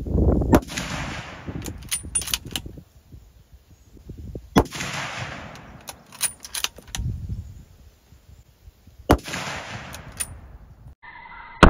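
Three rifle shots from a bolt-action .270 Winchester Winchester Model 70 Featherweight, spaced about four and a half seconds apart. Between the shots come quick metallic clicks as the bolt is worked to chamber the next round.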